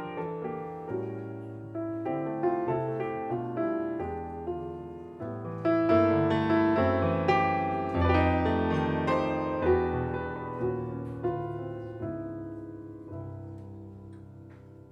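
Acoustic piano playing jazz chords and melody lines, each chord struck and left to ring. It swells in the middle and softens toward the end.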